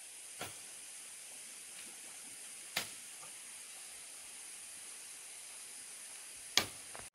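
A steady, high-pitched hiss with three short, sharp clicks: one about half a second in, one near three seconds, and a louder one near the end.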